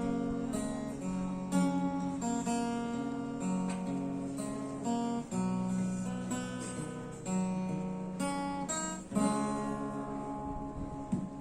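Acoustic guitar strumming chords in an instrumental passage without singing, the chords changing about once a second.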